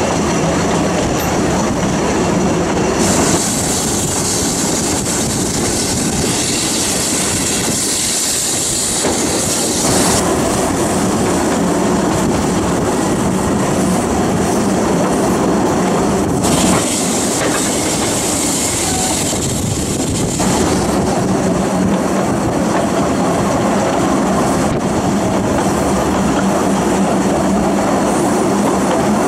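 Narrow-gauge steam-hauled passenger train heard from inside a moving carriage: a steady rumble and clatter of the carriage wheels on the track. A higher hiss comes in twice, for several seconds each time.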